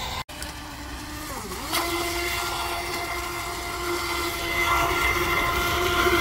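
Pro Boat Recoil 2 RC speedboat under power: its brushless electric motor gives a steady high whine over the hiss of water spray. The whine dips and climbs again about a second and a half in, then holds, getting a little louder near the end.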